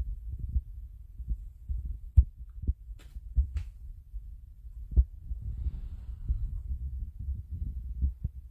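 Handling noise: irregular low rumbling and thuds with several sharp clicks, the loudest knocks about two seconds in and again about five seconds in.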